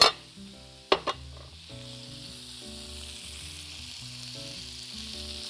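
Lamb chops and garlic cloves sizzling in hot oil in a frying pan, with two sharp clacks of metal tongs against the pan, one at the start and one about a second in.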